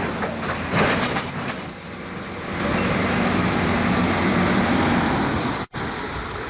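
Heavy machinery engine running under load, a dense rumbling noise with a steady hum. The sound breaks off abruptly for a moment near the end.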